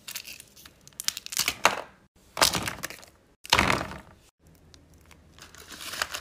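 Crinkling plastic packaging: a candy wrapper and a holographic zip-lock bag handled and pushed into a plastic poly mailer, in several short bursts of rustling.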